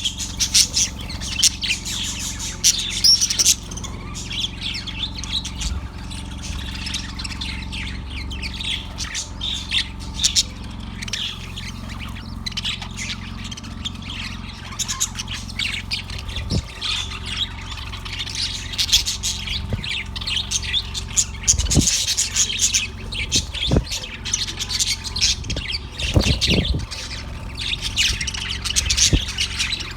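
Budgerigar chirping and squawking in a rapid, continuous stream of short high chirps, busiest at the start and again in the latter half. A few dull low thumps come in during the second half.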